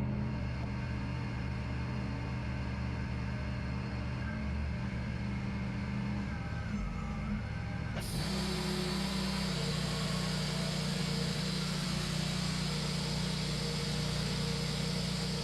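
Wood-Mizer LT40 band sawmill's engine running steadily; about halfway through, a sudden loud hiss starts and holds as the band blade cuts through the birch log, and the engine note shifts under the load.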